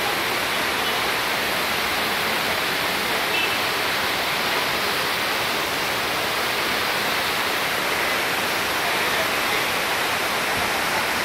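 Steady, loud rushing of the Cheeyappara waterfall, falling water cascading without a break.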